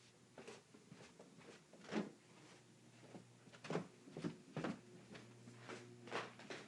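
Footsteps going down stairs, a short knock about every half second. A low steady hum comes in about halfway through.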